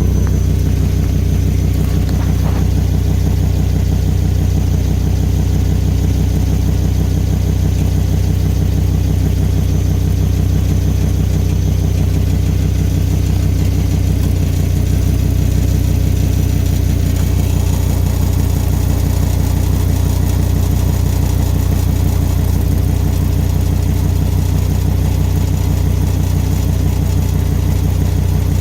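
Volvo V70 XC's turbocharged five-cylinder engine idling steadily, with its leaking exhaust.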